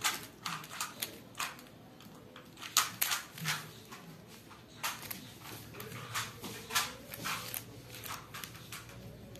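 A plastic 3×3 bubble cube being twisted by hand: irregular short clicks and clacks of the plastic ball pieces as its layers are turned, about two a second.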